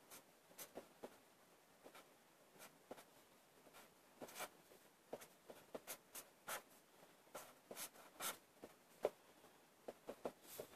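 Felt-tip marker drawing on paper: faint, irregular short strokes and squeaks of the tip as small shapes are drawn, one stroke louder about nine seconds in.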